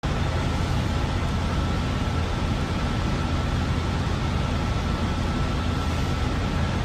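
Steady gym room noise: a low hum under an even hiss, with a faint steady whine and no distinct clanks.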